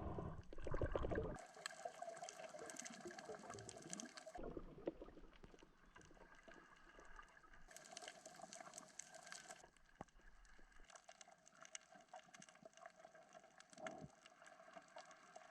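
Faint underwater ambience through a camera's housing: a thin hiss full of fine crackling clicks, with a louder watery rush in the first second or so.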